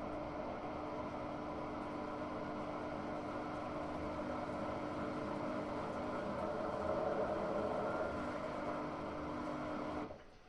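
Hotpoint-Ariston Aqualtis AQ8L 09 U washing machine running with a steady hum and whir, cutting off suddenly near the end.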